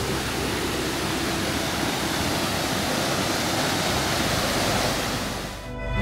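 Steady rush of water from the Giessbach Falls cascading down its first drops. Near the end the water sound cuts off and music begins.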